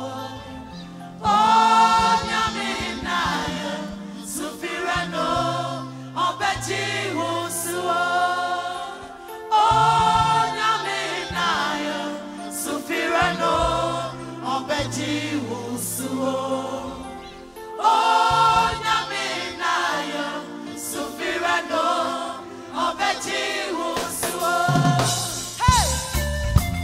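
Live gospel worship music: a woman sings lead into a microphone with backing singers, over a band with keyboards and bass. The sung phrase comes round in much the same shape about every eight seconds.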